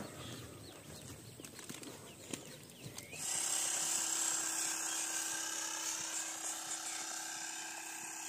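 A small electric air pump running steadily from about three seconds in, inflating a boat through a hose, with a fixed-pitch hum and hiss that cuts off abruptly at the end. Before it starts there is only faint outdoor background.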